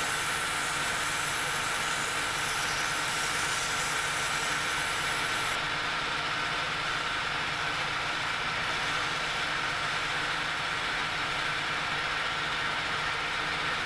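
Metal lathe running steadily, spinning a copper chimney cowl on a mandrel while wet-and-dry abrasive paper is held against it: a constant hiss over a steady machine whine.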